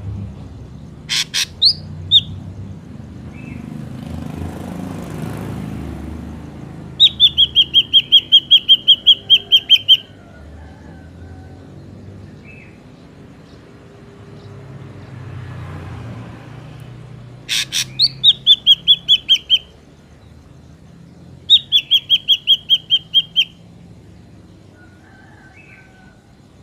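Drongo calling: a few sharp whistled notes, then three runs of rapid, evenly repeated high notes, each lasting two to three seconds. A low rumble of background noise runs underneath.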